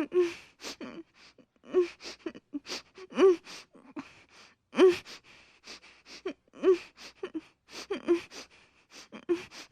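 A woman on the verge of tears, sobbing: short shaky catches of voice and sharp, gasping breaths in and out, broken every half second or so.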